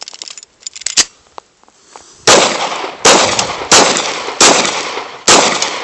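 A single click about a second in, then five loud gunshots fired about three-quarters of a second apart, each ringing out briefly after the report.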